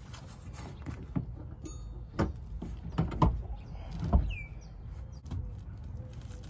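Irregular knocks and thuds as the stock seat of a Scion FR-S is shifted and worked loose inside the car; the loudest come a little past three and four seconds in.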